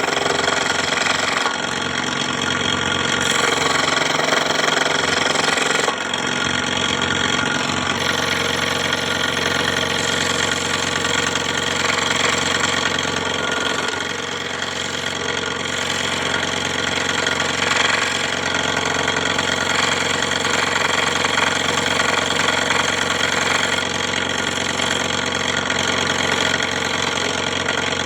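Scroll saw running steadily, a continuous machine hum with small abrupt jumps in its sound several times.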